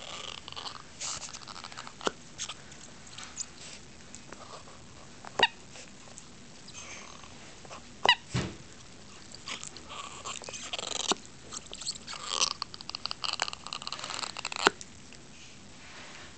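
Dog chewing and gnawing a rubber bone toy, with irregular clicks and scrapes of teeth on rubber and two brief high squeaks about five and eight seconds in.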